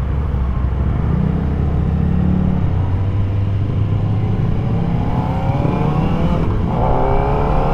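Kawasaki ZX-4RR's inline-four engine under way, running steadily at first, then rising in pitch as it accelerates from about five seconds in. The note dips briefly near the end and climbs again.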